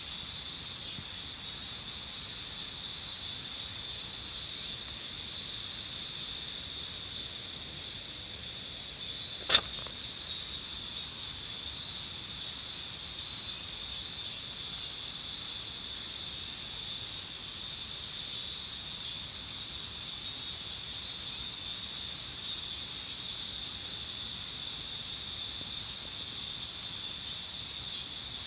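A steady, high-pitched chorus of insects, with a single short, sharp sneeze from a calico cat about ten seconds in.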